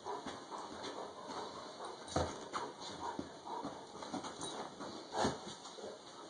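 A large dog clambering over a person lying in bed: irregular soft thumps of its paws on the mattress and body, with rustling of bedding, the loudest thumps about two seconds in and again about five seconds in.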